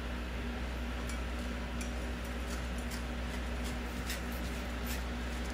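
Pan of bopis (diced pork offal and vegetables in a little liquid) simmering on a gas stove, giving off scattered faint pops and crackles, over a steady low hum.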